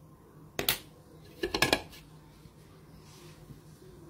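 Kitchen knife knocking on a cutting board while working sliced bitter gourd: one sharp knock about half a second in, then a quick run of several knocks around a second and a half in.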